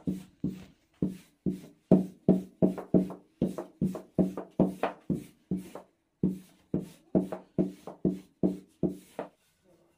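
Rhythmic wooden knocking, about two to three strokes a second, each with a short ringing tone, stopping near the end. It is typical of a long thin wooden rolling pin (oklava) working hand-rolled baklava dough sheets against a wooden board.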